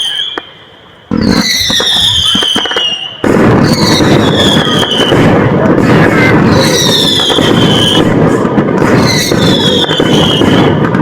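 Fireworks going off: a high whistle falling in pitch comes back four times, and from about three seconds in a dense, continuous crackling runs under it.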